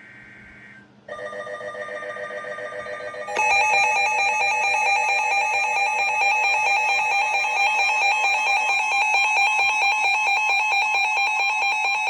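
Electronic emergency alert tones. About a second in, a buzzy pulsing tone starts. A little after three seconds a louder steady alarm tone takes over and holds to the end: the attention signal that heads a broadcast weather warning.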